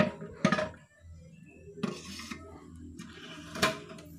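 Hard plastic and metal parts of a TOA horn speaker knocking and clattering as the driver unit is handled and lifted off the horn, with a few separate knocks, the loudest near the end.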